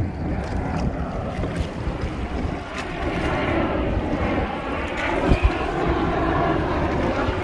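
Wind buffeting the microphone and choppy sea washing and splashing against the hull of a Hobie Tandem Island sailing kayak under way, with one sharp low thump a little past five seconds in.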